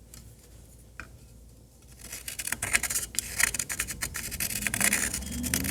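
Scratching and rubbing of a marker being drawn over a small knob part to mark it for cutting, starting about two seconds in after a faint tick.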